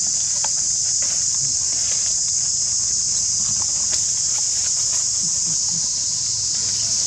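Steady, high-pitched drone of a chorus of insects, with faint scattered rustles and clicks of dry leaves as the macaques move over the ground.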